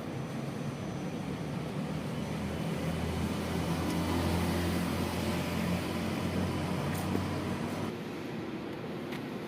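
Pressure washer running, a steady motor hum under the hiss of the water jet. The hum grows louder from about two seconds in and drops back shortly before the end.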